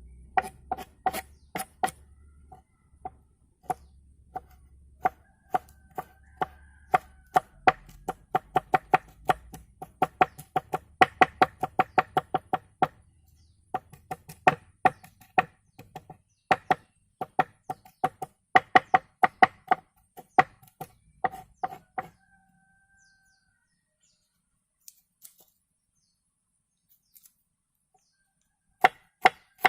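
Knife chopping on a wooden board in quick runs of sharp knocks, each with a short ring, typical of cutting up pumpkin. The chopping stops for several seconds past the middle and starts again near the end.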